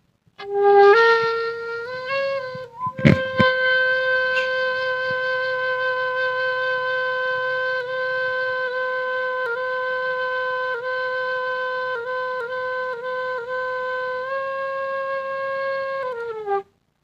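Bamboo bansuri flute played solo: a few notes stepping upward, then one long held note flicked with quick ornaments, sliding down just before it stops. A brief sharp knock sounds about three seconds in.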